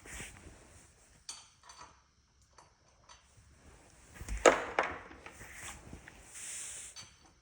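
Metal hand tools clinking as sockets and a wrench are handled, with a few sharp clicks and one loud metallic clank about four and a half seconds in.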